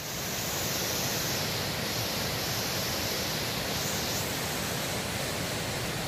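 Steady rushing of the Mangaro waterfall, an even roar of falling water with no breaks.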